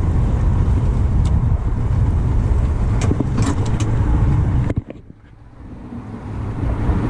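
Steady low rumble of the boat under way, with a few faint clicks. The rumble drops away suddenly nearly five seconds in and builds back up over the next two seconds.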